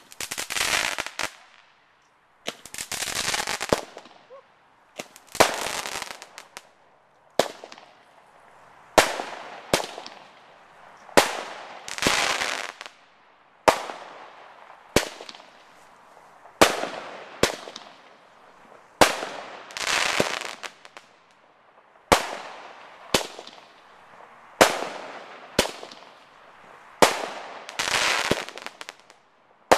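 Consumer fireworks going off in quick succession: sharp bangs about once a second. Many of the bangs are followed by a crackling tail.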